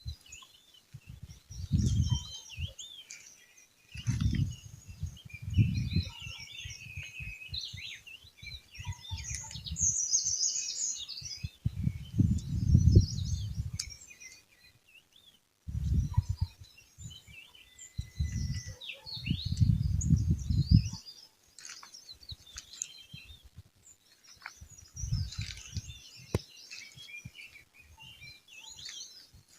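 Many small birds chirping and trilling at once, in quick overlapping calls. Repeated low rumbles come and go every few seconds and are louder than the birds.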